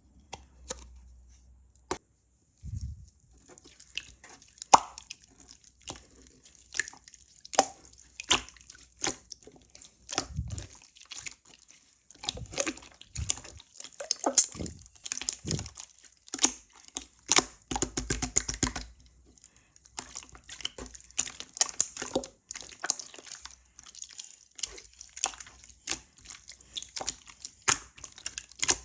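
Purple slime being squeezed, stretched and pressed by hand, giving irregular wet clicks and pops.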